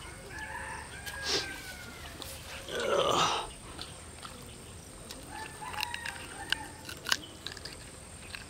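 Animal calls: thin calls early on and again near the end, and one louder, harsher call about three seconds in, over a steady thin high tone.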